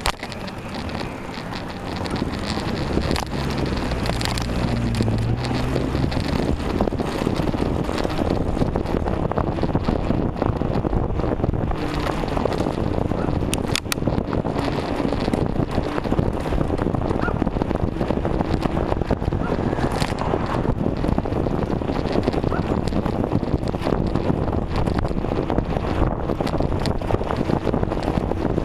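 Wind buffeting the microphone of a bicycle-mounted camera while riding, a steady rushing noise that grows louder over the first few seconds as the bike picks up speed. A couple of sharp clicks come about halfway through.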